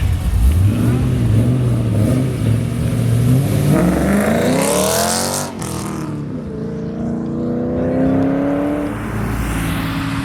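Car engine accelerating hard: a low rumble that climbs in pitch, drops briefly about halfway through as it shifts gear, then climbs again more slowly.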